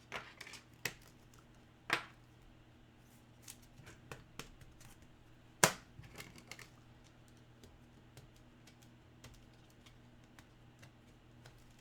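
Trading cards and plastic card holders being handled on a table: scattered sharp clicks and taps, the loudest about two seconds and five and a half seconds in, with softer ticks and rustles between, over a low steady hum.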